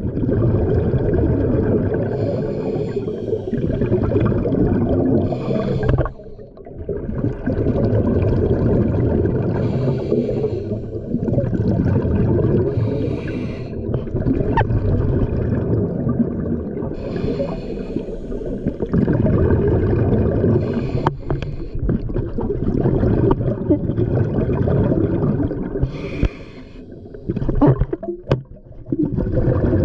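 Scuba diver breathing through a regulator, heard underwater: long bubbling rumbles of exhaled air, with a short hiss every few seconds, broken off briefly a couple of times.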